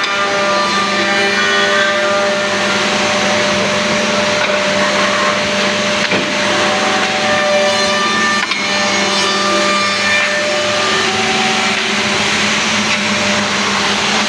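Double-end CNC tenoning machine running, its motors and cutters making a steady machine noise with several held tones while it mills tenons on wooden workpieces.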